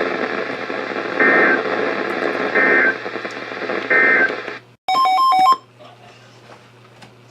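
NOAA Weather Radio end-of-message data code: three short bursts of two-tone digital screech about a second and a half apart, over radio hiss and hum, marking the end of the warning. About five seconds in comes a half-second burst of rapidly stepping electronic beeps, and then only faint hiss remains.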